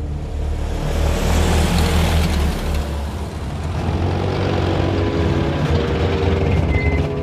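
Car engine and tyres as a sedan drives in and slows to a stop: a steady low engine rumble with a swell of tyre hiss in the first couple of seconds. Soft music comes in underneath in the second half.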